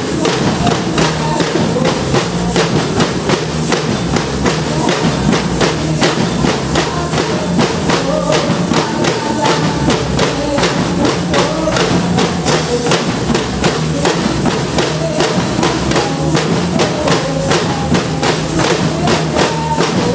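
Percussion band playing drums, snare and bass drum beating out a fast, steady rhythm.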